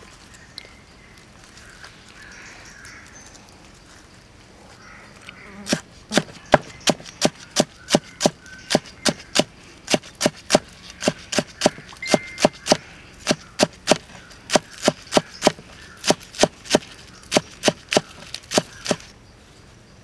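Cleaver chopping green onions on a wooden chopping block: a steady run of sharp knocks, about three a second, starting about six seconds in and stopping shortly before the end.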